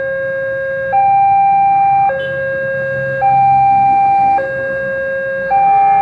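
Railway level-crossing warning alarm sounding a steady two-tone hi-lo signal, switching between a lower and a higher tone about every second, which warns that a train is approaching and the barriers are down.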